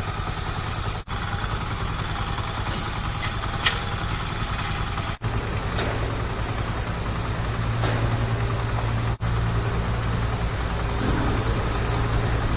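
Mini excavator's diesel engine running steadily, its hum growing a little stronger about five seconds in, with a sharp metallic clink near the start.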